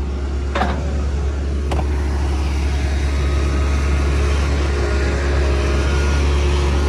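Diesel excavator engine running steadily close by, a low hum that grows slightly louder, with two knocks about a second apart near the start as a plastic tub is handled.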